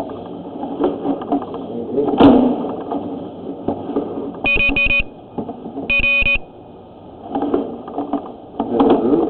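Two short electronic beeps, each about half a second long and about a second and a half apart, over rustling handling noise, with one sharp knock about two seconds in.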